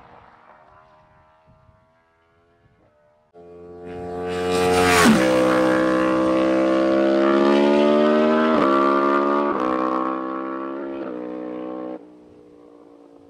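A 2024 Yamaha R1's crossplane inline-four, breathing through a full titanium Akrapovic Racing Line exhaust with no dB killer, makes a full-throttle fly-by. The engine note swells and rises as the bike approaches, drops sharply in pitch as it passes about five seconds in, then keeps climbing as it pulls away, with two brief dips in the note. It cuts off abruptly near the end.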